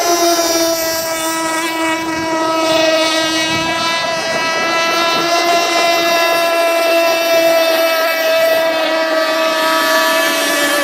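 Radio-controlled model boat's motor running at high, steady speed: one high, buzzing note held almost constant throughout.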